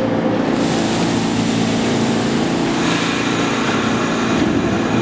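New York City Subway train coming through the tunnel toward the platform: a steady rumble of wheels on rail with a low hum of motors, the rail noise turning brighter and hissier about half a second in and again near three seconds in.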